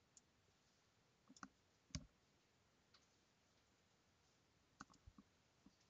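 Faint computer mouse clicks, about half a dozen short isolated clicks spread irregularly over a few seconds, against near silence.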